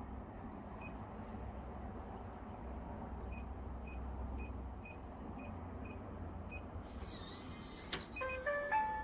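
Electronic beeps from a SECURAM smart lock during pairing. First a row of short, faint, high beeps about two and a half a second, then a swish and a click about eight seconds in, then a rising run of three or four chime tones.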